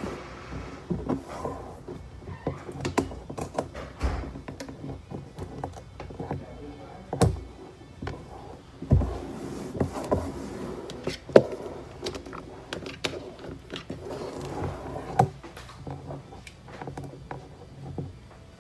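Hands rubbing, sweeping and pressing marble-pattern adhesive contact paper flat onto a kitchen countertop, with scattered knocks and taps on the surface.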